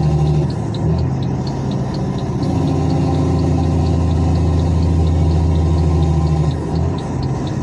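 Heavy vehicle's diesel engine running loud with a deep, steady drone that dips briefly about half a second in and again near the end as the load changes. A light, fast ticking of about four ticks a second runs alongside it.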